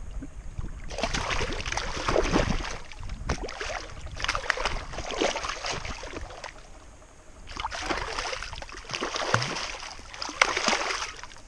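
Water splashing and sloshing close to a kayak in two long spells, the first starting about a second in and the second a little past the middle, over a low wind rumble on the microphone.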